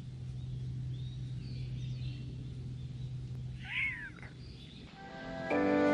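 A black-and-white male cat gives one short, husky meow about two-thirds in, over a steady low hum and faint high chirps. Gentle background music starts just before the end.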